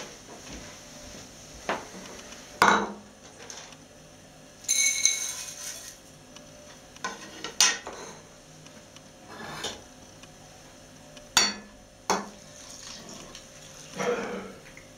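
Kitchen dishes and a metal bowl handled on a wooden worktop: a series of separate knocks and clinks, the loudest about two and a half seconds in, with a brief ringing about five seconds in. Near the end, a short pour from a mug into the bowl.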